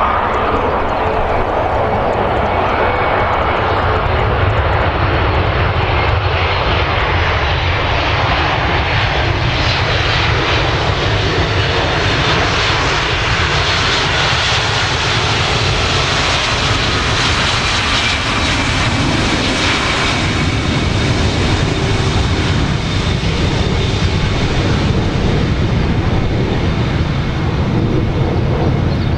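Airbus A320-200 jet engines during touchdown and the landing roll: a loud, continuous rush with a high whine that swells through the middle and eases toward the end.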